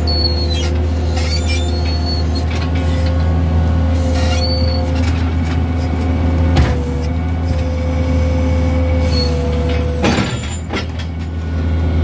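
Skid loader engine running steadily under load, with a higher steady whine over it, while the bucket scrapes and pushes manure; a few short clanks come through.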